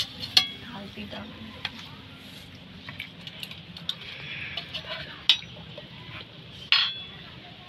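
A metal spatula scraping and clinking in a metal karahi and on a clay plate as fried potatoes are lifted out. There are a few sharp knocks, spaced out through the clip.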